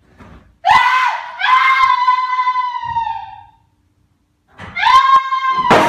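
A person screaming twice: a long, high-pitched scream from about a second in that fades out, then a second one near the end, with a sharp click and a short knock during it.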